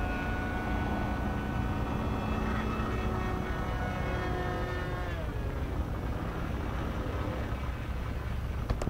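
Electric motor and propeller of a foam RC F-35 ParkJet whining steadily in flight, its pitch dropping about five seconds in, over a low rumble of wind. A couple of sharp clicks near the end.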